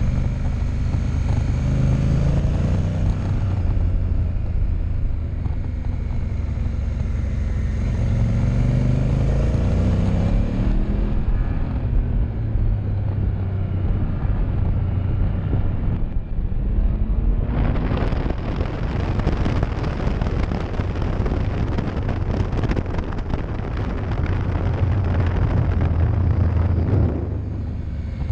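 Honda Africa Twin CRF1000's parallel-twin engine under way on track, its note rising in pitch under acceleration a few times in the first two-thirds. Then heavy wind rush over the microphone at speed takes over for most of the last third, easing shortly before the end.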